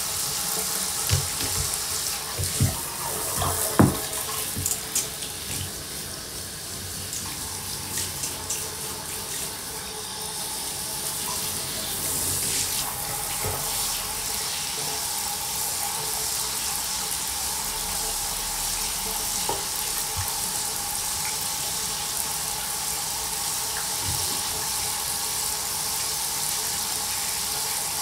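Water running steadily into a bathtub, with a few sharp knocks and bumps in the first several seconds.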